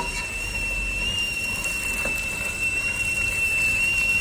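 Carrots, green beans and peas sizzling steadily in oil in a saucepan, with a spatula scraping the pan now and then as they are stirred. A steady high-pitched whine runs underneath.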